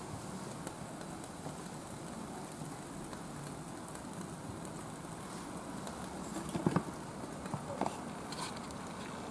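Steady soft rushing of alcohol stoves burning under chimney starters packed with Oga binchotan charcoal, with a few sharp clicks and knocks about seven and eight seconds in.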